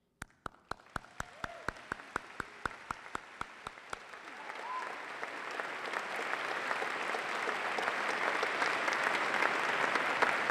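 Applause: one person clapping steadily close to the microphone, about five or six claps a second, then the crowd's applause swells and grows louder toward the end.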